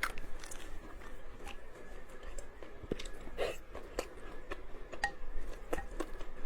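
Close-up mouth sounds of someone eating spicy noodles with tofu skin: chewing with frequent short wet clicks and smacks, and a brief slurp-like sound around the middle.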